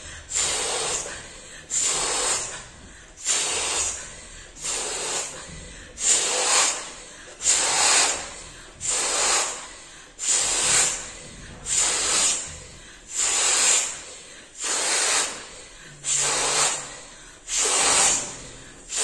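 Large latex balloon being blown up by mouth: repeated hissing breaths blown into its neck, about one every second and a half, with quicker breaths drawn in between.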